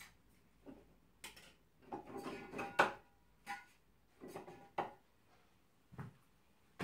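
Irregular knocks and clatter of household objects being handled and moved while someone searches for an item in a small room. The busiest clatter comes about two to three seconds in, followed by a few single knocks.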